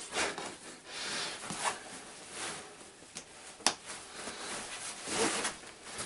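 Nylon fabric and straps of a Bach trekking backpack rustling as its lid is pulled down and fastened, with a few sharp clicks from the fastenings, the loudest about three and a half seconds in.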